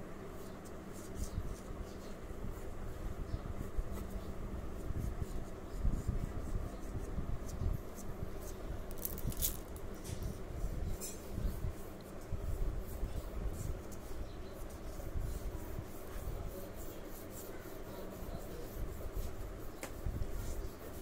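Graphite pencil scratching and rubbing across drawing paper on a clipboard in short strokes, over a low rumble of the hand moving on the paper and board. A sharper scratch stands out about nine seconds in.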